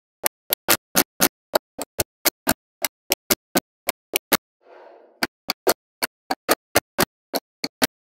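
Small magnetic balls clicking sharply as magnet-ball slabs snap together, in a quick even run of about four clicks a second. About halfway through, the clicks break for a soft scrape of the balls sliding, then resume.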